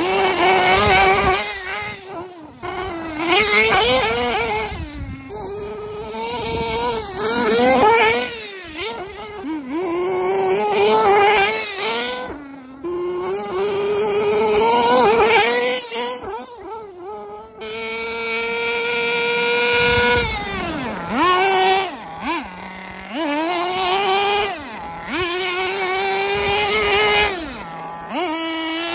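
Tamiya FR-32FX 5.2 cc two-stroke nitro glow engine of a 1/8-scale RC truggy being driven, its high-pitched buzz revving up and down over and over with the throttle. Past the middle it holds one longer, steady high-pitched run, followed by a few sudden drops in pitch.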